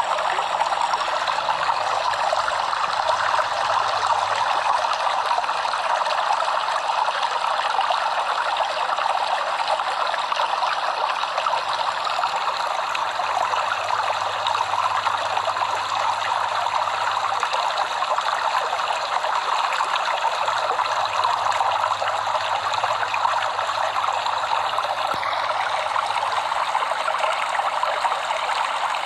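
Stream water running and trickling over stones, a steady even rush.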